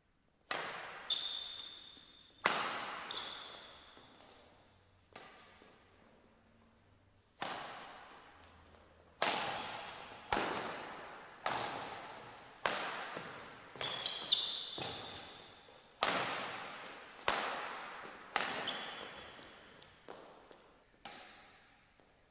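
Badminton rackets striking a shuttlecock in rallies: sharp cracks about once a second, each with a long echo, and a pause of a few seconds in the middle. Short high shoe squeaks on the court mat come with several of the hits.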